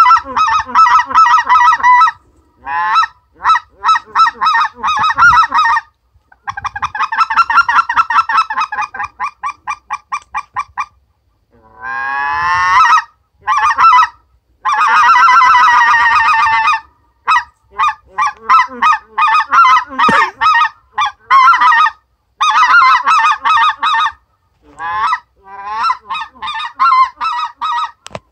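Purple Heart Flight General specklebelly goose call blown by mouth: fast runs of short, high honking notes and single clucks. About twelve seconds in come sweeping up-and-down glides, followed by a long wavering note.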